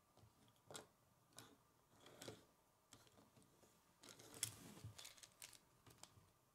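Faint scattered clicks and knocks of plastic K'nex parts as a model motorbike is handled and turned over on a wooden tabletop, with the busiest, loudest run of taps about four and a half seconds in.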